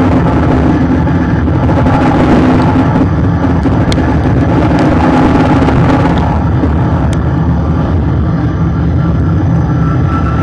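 Car running at steady speed on a race track, heard from a bumper-mounted camera: a loud, steady drone of engine and exhaust mixed with tyre and wind rush.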